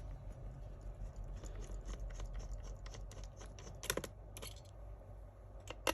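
Scattered light clicks and taps of hands working inside an opened laptop, with a sharper click about four seconds in and another near the end.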